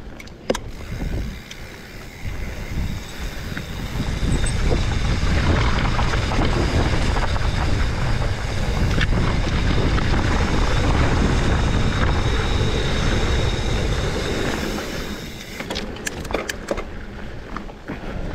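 Mountain bike descending a steep, loose dirt and rock trail: wind rushing over the microphone, loudest from about four seconds in until about three seconds before the end as speed builds, over tyres rumbling and crunching on dirt and stones. Sharp clicks and knocks from the bike come near the start and again near the end.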